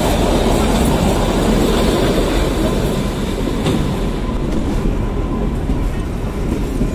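Kalka–Shimla narrow-gauge toy train running, heard from aboard at an open window: a steady rumble of wheels on the rails with a few faint clicks over the joints.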